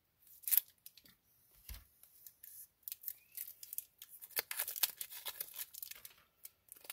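A 1993 Topps Stadium Club card pack being opened by hand: scattered short crinkles and clicks of the wrapper, sparse at first and busier from about four seconds in.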